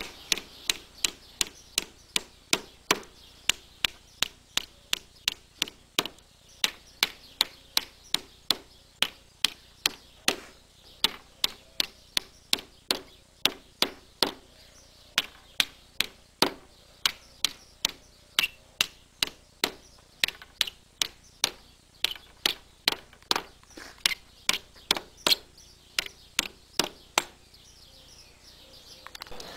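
Steel hammer driving nails through a thin wooden strip into thick wooden blocks: a steady run of sharp blows, about two a second with a few short pauses, stopping shortly before the end.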